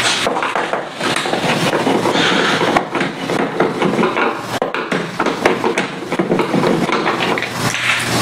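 Hand screwdriver backing screws out of an LCD TV's back cover: steady scraping and grinding with many small clicks and knocks.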